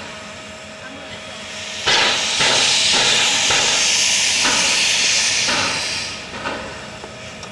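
WAGR W-class narrow-gauge steam locomotive blowing off steam: a loud hiss starts about two seconds in, holds for roughly four seconds, then fades.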